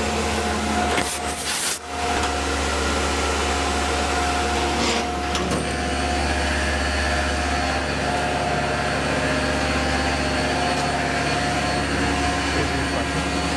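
Tormach PCNC 1100 CNC mill cutting a metal part with a long end mill on a cleanup pass: a steady machining whine over a low spindle hum, with a slight chatter from the overlong end mill. A couple of knocks come a second or two in.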